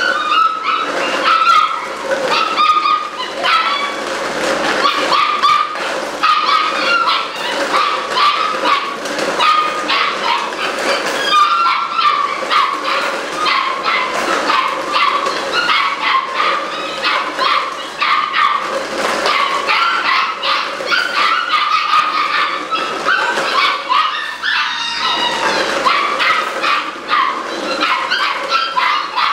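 Belgian Malinois puppies yipping and barking, many short high-pitched yaps overlapping in a constant chorus.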